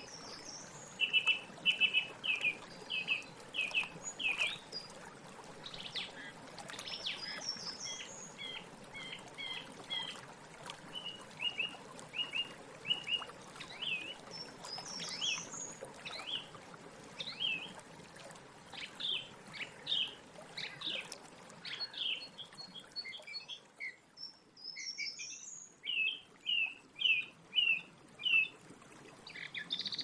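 Song thrush singing: loud, clear phrases in which a short note is repeated several times in quick succession, with short pauses between phrases and each phrase different from the last.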